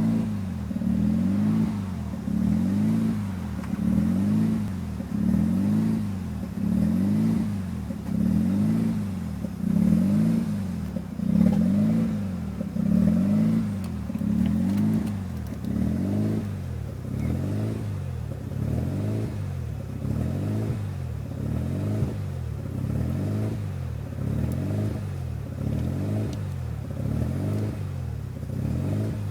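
1993 Mazda RX-7's 13B twin-rotor rotary engine idling roughly, its speed hunting up and down about once a second. This is the bad idle that appeared after an aftermarket Power FC engine computer was fitted.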